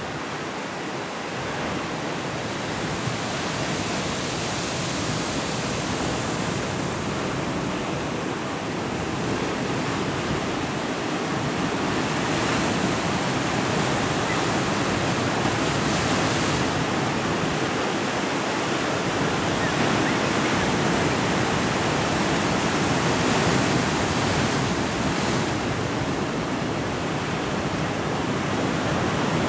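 Ocean surf breaking on a rocky shore: a continuous rushing wash of waves that grows slowly louder.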